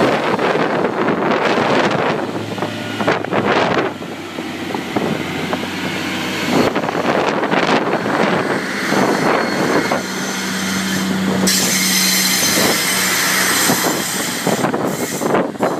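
Class 142 Pacer diesel railbus pulling away and accelerating past, its engine note under load stepping up about ten seconds in, with wheel and rail noise as it runs round the curve. Heavy wind buffeting on the microphone throughout.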